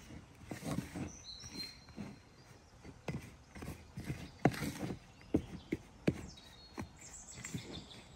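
Irregular sharp knocks and taps, about a dozen spread unevenly, with two short high chirps, about a second in and near the end.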